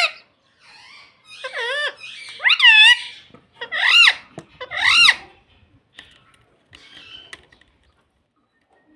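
Rose-ringed parakeet (Indian ringneck) calling: about four loud, shrill, swooping squawks in quick succession, then a few fainter sounds.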